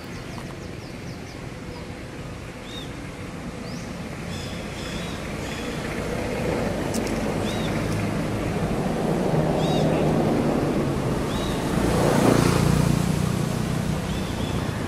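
A motor vehicle passing: a broad engine and road noise that grows louder over about ten seconds, peaks near the end, then starts to fade. Short high chirps, likely from birds, come and go over it.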